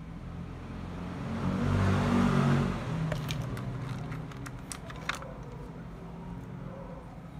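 A motor vehicle's engine passes by, swelling and fading over about two seconds. A few light clicks and taps follow as the multimeter and test probes are handled and set down on the bench.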